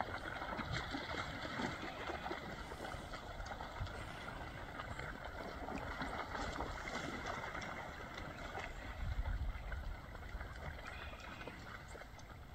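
White-tailed deer splashing as they run through shallow river water: a steady watery rush with many small splashes.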